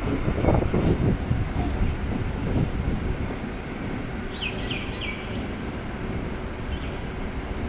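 Railway platform noise: a steady low rumble of a train and station, with a bird chirping three quick times about halfway through.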